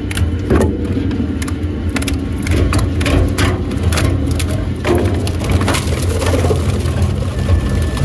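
WEIMA WL 6 I wood chipper's rotor running with a steady low hum while it chews old planks into chips, with irregular sharp cracks and snaps as the wood breaks.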